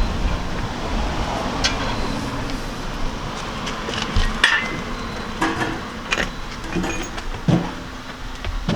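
Scattered metal clinks and knocks from an exhaust downpipe, test pipe and bolts being handled and fitted up under a car, over a steady low background noise.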